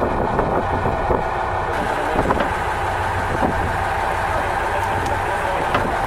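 Fishing boat's engine running steadily, a low even hum under a noisy haze, with a few faint knocks.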